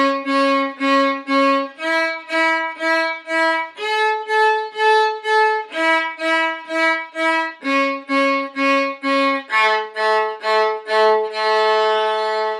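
Solo violin playing a slow A major arpeggio in bowed eighth notes, about two a second, each pitch repeated about four times: up through C-sharp and E to the high A, then back down to the low A, ending on a longer held note.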